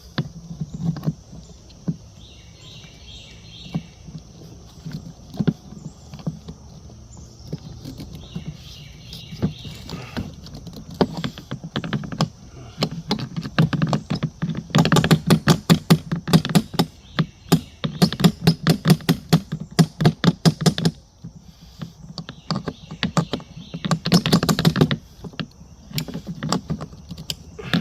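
Rapid runs of small metallic clicks and taps, several a second, from hand work on a garden cart's wheel and axle as the replacement wheel is fitted. The clicking is sparse at first, then comes thick in two long runs in the second half.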